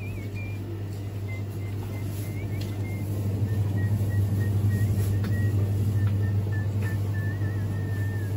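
Steady low hum of a refrigerated display cooler, growing louder about halfway through. A faint, thin high tone steps slowly up and down in pitch over it, like a quiet tune.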